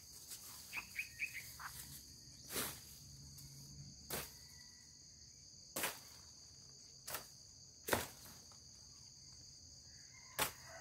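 Steady high-pitched insect drone, with a few short chirps about a second in and half a dozen sharp snaps or knocks scattered through, the loudest near the end.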